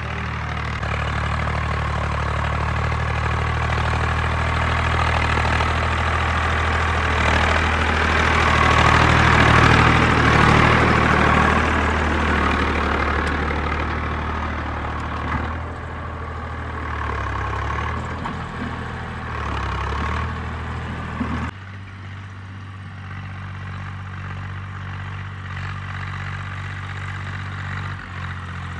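Swaraj 744 tractor's diesel engine running steadily as it drags a tillage implement through dry soil. The drone swells louder in the middle, then drops suddenly to a quieter level about three quarters of the way through.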